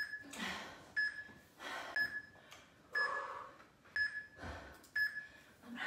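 Short, high electronic beeps about once a second, evenly spaced, with heavy breaths and exhales in between them from someone exercising.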